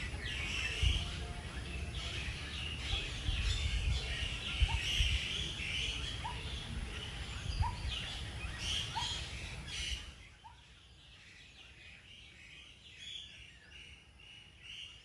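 Several birds chirping and calling in overlapping short notes, with one short rising call repeated about once a second in the middle. A low rumble sits under them until about ten seconds in, after which it stops and the birds are fainter.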